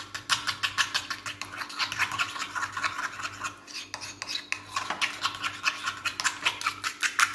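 A fork beating egg with ketchup and red pepper in a small ceramic bowl: quick, even metal-on-ceramic scraping strokes, several a second, making an egg wash for brushing pastries.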